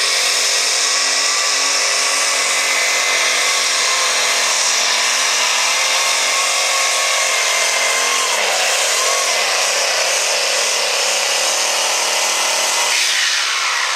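Light super stock pulling tractor's turbocharged diesel engine running flat out under the load of the sled. From about eight seconds in the revs swing up and down a few times, and they ease off near the end.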